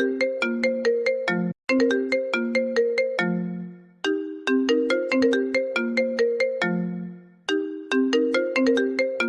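A phone message ringtone: a short melody of quick notes, each struck sharply and dying away, played on loop. It repeats about every three seconds, with a short break between repeats.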